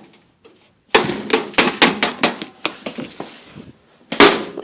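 A quick run of sharp cracks and clicks, about six a second for under two seconds, then one loud knock near the end.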